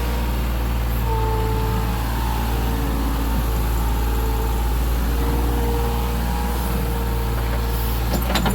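Excavator's diesel engine running steadily under work, with a whine above it that steps up and down in pitch. A few sharp clicks or knocks come near the end.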